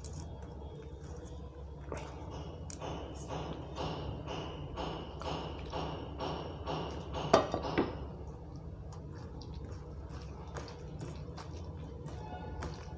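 A spoon scraping and tapping against a bowl in a run of short regular clicks as dal is spooned out, with a sharp clink about seven and a half seconds in; after it, softer scattered sounds of fingers mixing rice on a steel plate.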